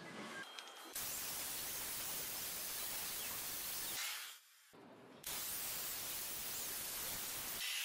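Ryobi single-action electric polisher with a sponge buff running against a car door's painted panel, buffing in fine compound. It gives a steady rushing noise in two stretches, with a short break about four seconds in, and each stretch starts and stops abruptly.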